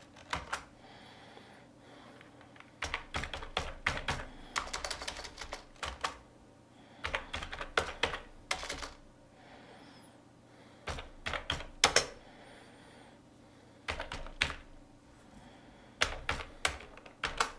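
Computer keyboard typing: several short bursts of rapid keystrokes with pauses of a second or two between them.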